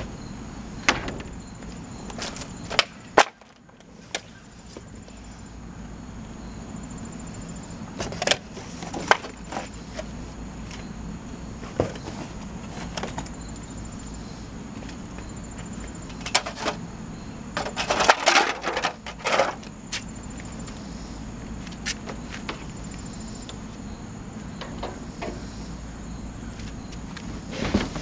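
Scattered knocks and bangs from a dumpster's plastic lid and the cardboard boxes inside being handled: three sharp bangs in the first few seconds and a burst of clattering and rustling about eighteen seconds in.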